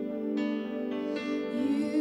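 Worship music on an electric keyboard: sustained chords held under a few newly struck notes.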